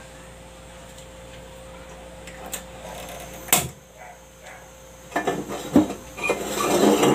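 Kitchen things being handled: a single sharp knock about three and a half seconds in, then from about five seconds a run of clattering knocks and clinks, over a faint steady hum.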